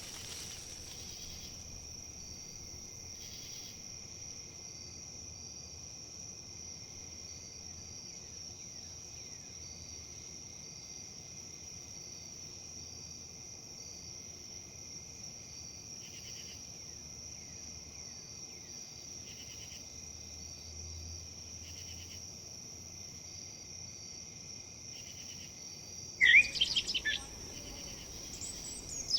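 Insects trilling steadily, a continuous high-pitched buzz, with a bird's loud, quick chirping calls breaking in near the end.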